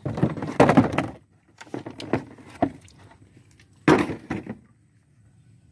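Wooden knocks and scrapes as a plastic bucket of fish is handled and set down on a wooden boat's deck: a loud clatter at the start, a few sharp knocks, and another hard knock near the end.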